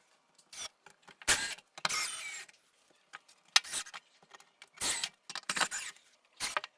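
Short, irregular bursts of scraping and handling noise as metal backrest brackets are fitted and fastened to a wooden sauna wall.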